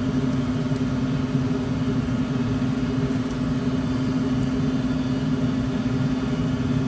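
Steady machine hum: a low, even drone with one strong tone that does not change.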